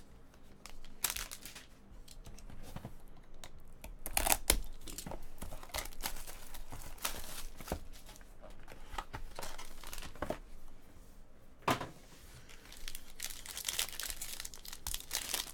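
Trading-card packaging being handled: irregular crinkling and tearing of wrappers and plastic as card packs are opened and the cards handled.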